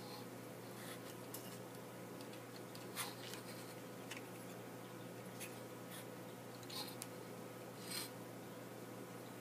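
A steady faint electrical hum with a handful of light scrapes and ticks, a second or two apart, from tools working the solder joints on a circuit board.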